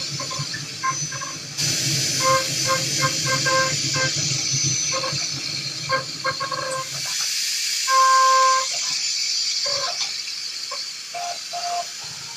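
Five-axis CNC machining centre cutting, a steady hum with a hiss of coolant or air spray that drops away about seven seconds in. Short beep-like notes of a simple tune play over it.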